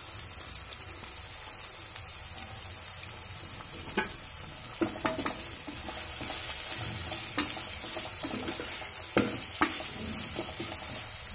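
Sliced onions sizzling as they fry in hot oil in a pot, salted and stirred with a spoon. The spoon scrapes and knocks against the pot several times.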